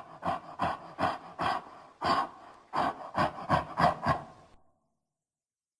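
A monster sound effect: a creature's rapid, heavy huffing breaths, about three a second with a short break near the middle, stopping dead after about four and a half seconds.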